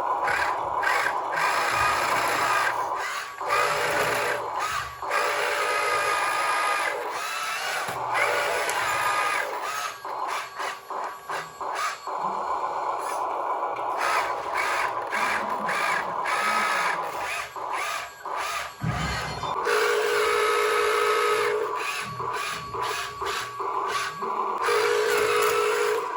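Small electric motors and gearboxes of radio-controlled scale models whining in short runs, stopping and starting again many times, with a steadier higher whine about two-thirds of the way in.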